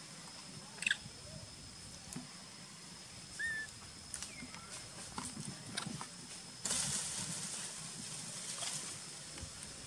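Outdoor forest ambience: a steady high-pitched whine throughout, a few short chirps and squeaks (the loudest about a second in), and a stretch of hissing rustle starting about seven seconds in.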